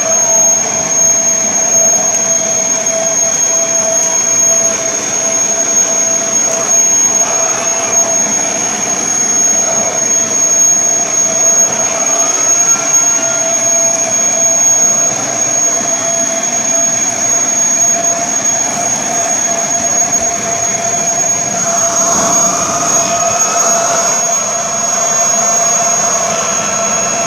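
Kirby Sentria vacuum cleaner running steadily with a high whine while its brush roll works over bed sheets.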